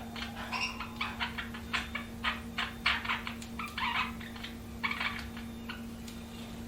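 Budgerigars chirping and chattering in quick, short calls, busiest in the first five seconds and thinning out toward the end, over a faint steady hum.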